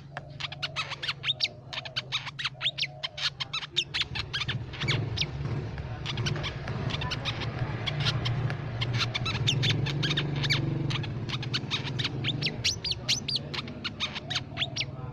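Crimson sunbird calling: a fast run of short, sharp, high chipping notes, dense at first, sparser through the middle and thickening again near the end, over a steady low background hum.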